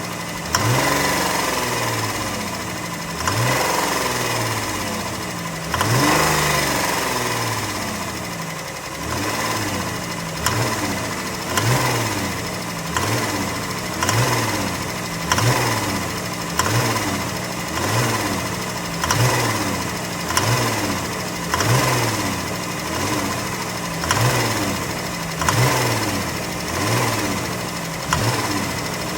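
2015 Dodge Grand Caravan's 3.6-litre Pentastar V6 running with a rod knock on cylinder 6, the sign of a failed rod bearing that calls for a rebuild or engine swap. The throttle is blipped over and over, a few longer revs at first and then a quick rise and fall about every second.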